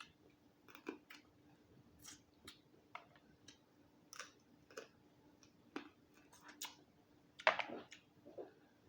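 Close-up eating sounds of a person eating steamed Dungeness crab: irregular mouth clicks and smacks of chewing. A louder, longer smack or slurp comes about seven and a half seconds in.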